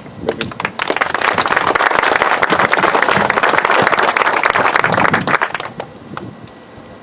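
A small crowd applauding. The clapping builds within the first second and dies away about six seconds in.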